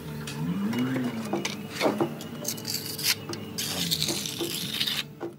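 Hand trowel scraping and pressing wet cement repair mortar into a patch on a concrete floor: irregular scratches and taps, over background music.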